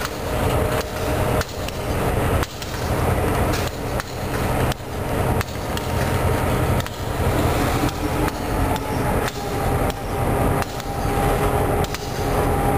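Freight cars rolling slowly past with a low steady rumble, their wheels knocking sharply over the rail joints about once a second. A faint steady whine grows stronger in the second half.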